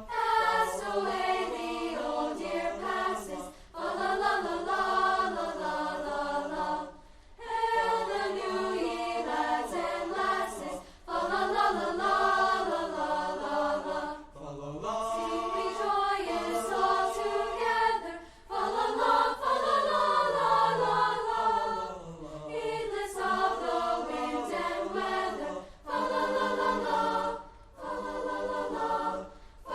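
A choir singing a Christmas piece in held phrases of a few seconds each, separated by brief breaks for breath.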